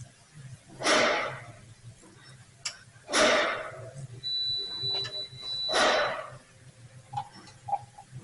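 Quarter-inch-drive ratchet with a 10mm socket clicking in three short bursts as the timing cover bolts are run out, with faint clicks in between.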